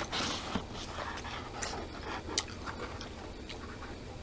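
Close-up eating sounds of people chewing chicken wings: a breathy huff at the start, then scattered small wet clicks and smacks of chewing.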